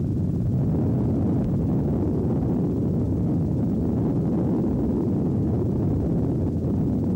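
Robinson R22 helicopter's engine and rotor noise heard from inside the cabin: a steady, low-pitched rumble.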